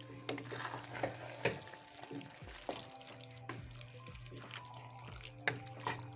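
Wooden spatula stirring a wet, chunky salt-cod stew with potatoes in a stainless steel pot, with irregular scrapes and knocks against the pot. A steady low hum runs underneath.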